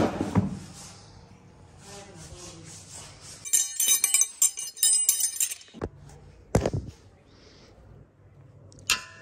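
Steel spanners clinking and jangling against each other for about two seconds, then a single knock, and a short metallic clink near the end.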